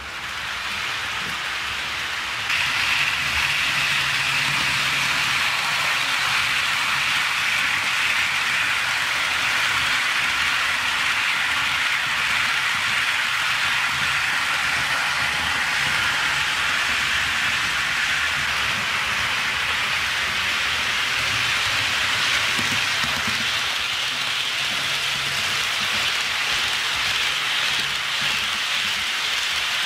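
HO scale model freight train running past close by: a steady hiss of metal wheels rolling on the track, with a faint low hum, getting louder about two and a half seconds in.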